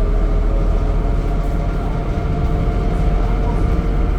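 Temsa Avenue LF 12 city bus's DAF diesel engine and driveline running under way, heard on board: a heavy low rumble with a steady whine of several tones above it.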